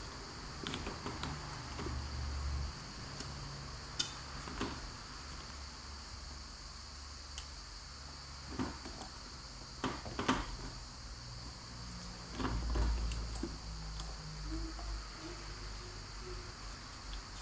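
Pieces of dried stockfish being set by hand into a pan of raw meat and dried fish: a few scattered soft knocks and rustles, over a steady high-pitched background hiss.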